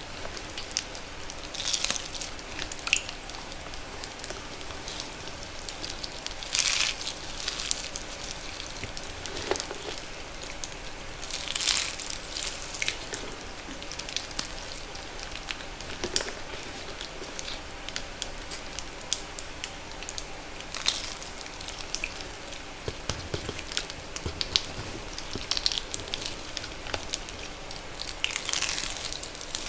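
Reformed blocks of pure magnesium carbonate chalk, made with water, being crushed. A steady fine crackling is broken by scattered louder pops and crunches.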